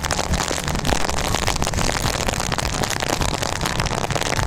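Motorcycle riding noise on a wet road: wind rushing and crackling over the microphone, over the steady low rumble of the Yamaha R15 V3's engine and tyres.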